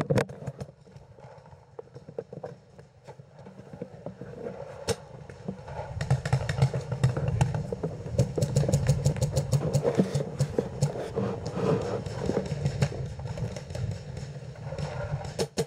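Paintball markers firing in rapid strings of sharp pops, densest and loudest from about six to thirteen seconds in, over the low rumble and knocks of a player moving behind a wooden bunker.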